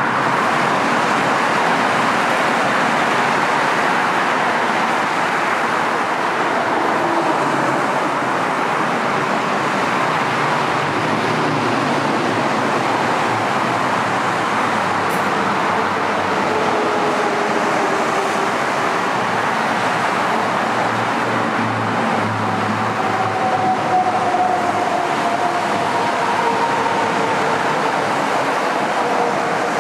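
Steady freeway traffic noise, a constant rush of passing cars and trucks, with faint whining tones sliding slowly in pitch during the second half.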